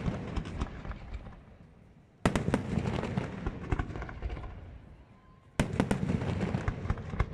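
Fireworks going off in volleys: two fresh salvos, about two and five and a half seconds in, each opening with sharp bangs and trailing into dense crackling that fades away.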